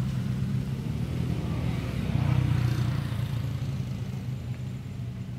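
Low engine rumble of a passing motor vehicle, fading away over a few seconds.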